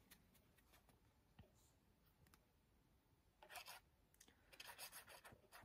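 Mostly near silence, with faint scratchy rubbing in the second half as the nozzle of a liquid glue bottle is drawn across card stock to lay down glue.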